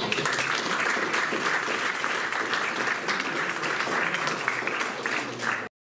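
Audience applauding: dense, even clapping that cuts off abruptly near the end.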